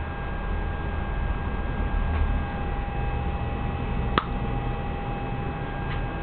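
A sharp snap of a high-voltage spark arcing across the closely spaced anodes in the tube, about four seconds in, with fainter ticks about two seconds in and near the end. Under it is a steady electrical hum with a thin high whine.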